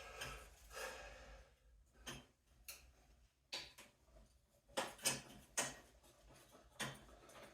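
Faint, irregular light clicks and taps, about seven in all, from thin sheet steel being bent by hand over a steel pipe anvil.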